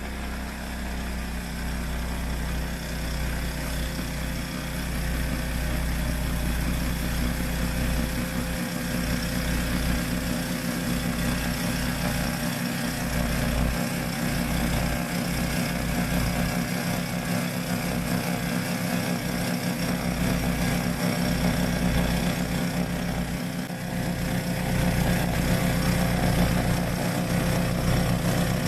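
Yamaha YT1070 crawler snowblower's engine running steadily, growing louder over the first several seconds.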